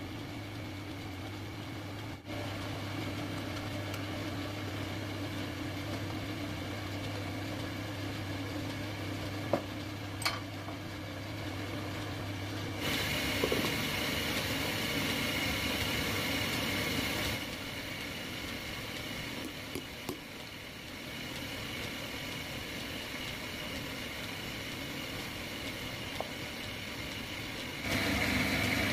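Belt-driven wood lathe running with a steady hum while a bowl blank spins. About thirteen seconds in the sound switches to a louder even hiss with a few knocks, and near the end the running machine is heard louder again.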